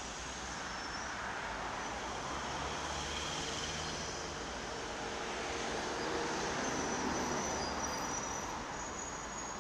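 Steady city road traffic noise: a low engine rumble under an even hiss, with faint short high squeaks now and then.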